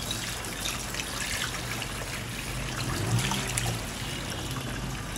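Yam pieces frying in oil over very low heat: a steady sizzle with scattered small crackles.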